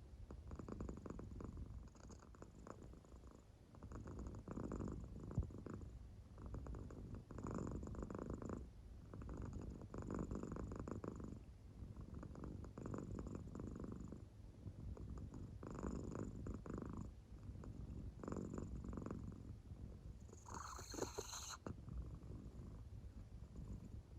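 American Shorthair cat purring in deep sleep: a soft, rasping purr that swells with each breath, about every two to three seconds. Near the end one brighter, sharper sound stands out.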